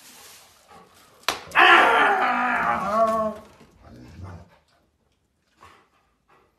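A sharp knock, then a dog's drawn-out vocal whine of about two seconds, dropping in pitch at the end, followed by a short low grumble.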